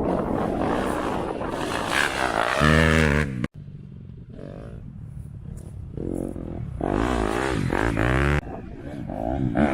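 Dirt bike engine running and revving, its pitch rising and falling, with an abrupt cut about three and a half seconds in; after a quieter stretch it revs up again.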